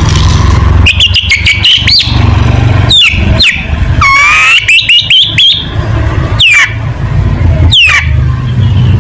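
Long-tailed shrike singing in loud bursts of sharp, downward-sweeping whistles and rapid chattering phrases, over a steady low hum.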